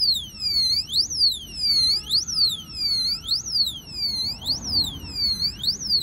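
A motorcycle disc brake lock's built-in 110 dB anti-theft alarm sounds after its motion sensor is disturbed. It is a loud electronic siren whose pitch sweeps up and down about once every three-quarters of a second.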